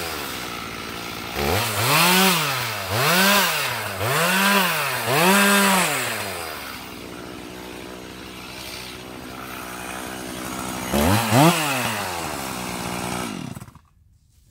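Stihl MS391 two-stroke chainsaw revved four times in quick succession, each rev rising and falling in pitch, then idling for several seconds. It is revved once more, then shut off, the engine stopping abruptly near the end.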